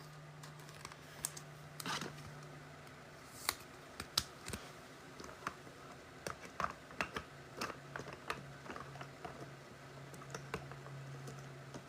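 Scattered light clicks and taps at an irregular pace, over a faint steady low hum.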